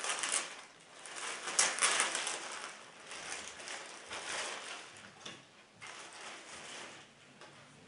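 A clear plastic bag crinkling and rustling as a cap is pulled out of it. The crinkling comes in uneven bouts, loudest in the first two seconds, and dies away toward the end.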